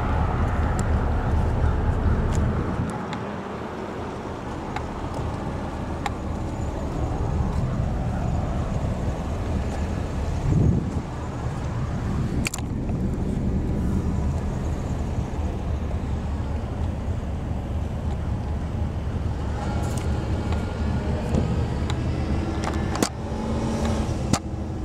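Car driving: steady engine and road rumble heard from inside the cabin, with a couple of sharp clicks.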